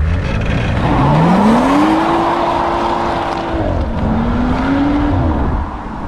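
A car engine revving: its pitch climbs for about a second and holds high, then drops, rises again more briefly and falls away near the end.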